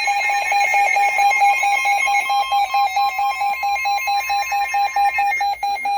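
Weather radio receiver sounding its alert alarm: loud, rapid electronic beeping, with a fainter steady tone from about one to five seconds in, typical of the NOAA Weather Radio 1050 Hz warning alarm tone. The sound signals an incoming weather warning.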